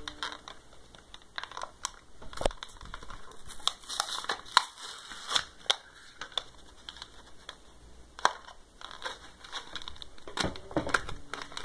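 A toy's plastic blister pack and cardboard backing being pried and pulled open by hand: irregular crinkling and crackling of the plastic, with sharp snaps, busiest in the middle and again near the end.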